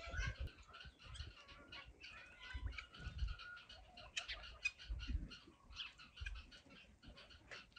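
Hens clucking with other birds calling, faint, and a few soft low thumps.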